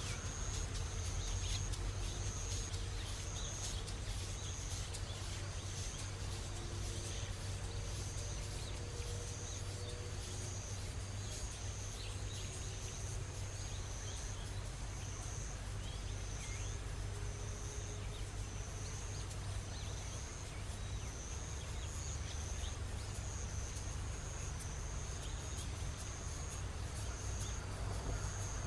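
An insect calling in high, even pulses about once a second, over a steady low rumble of outdoor background noise.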